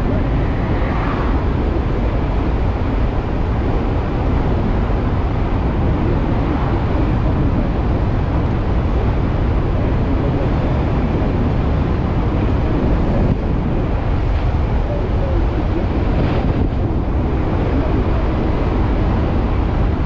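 Steady wind rushing over the microphone, with road and tyre rumble, from an electric motorcycle riding at speed; there is no engine note.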